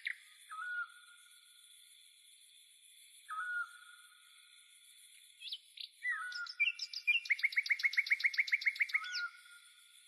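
Songbirds singing: a couple of short single notes, then about six seconds in a fast run of repeated notes, roughly nine a second, lasting about two seconds.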